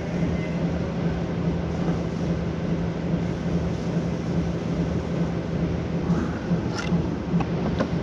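Steady low hum of running machinery, pulsing slightly, with a few short knocks about two thirds of the way in.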